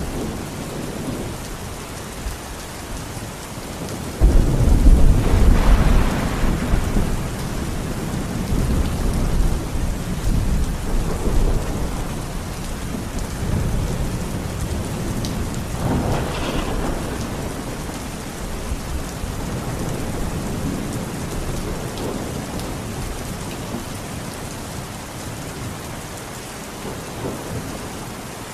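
Heavy rain falling steadily. About four seconds in, a sudden loud thunderclap breaks into a long low rumble that rolls on for several seconds. A second, weaker crack of thunder comes about sixteen seconds in.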